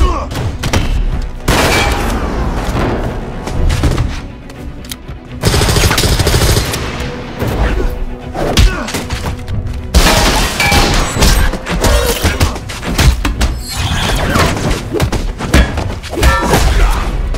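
Action-movie fight sound design: a music score under a rapid series of heavy thuds, punches and hard impacts, some with a metallic edge from a metal shield and a metal arm.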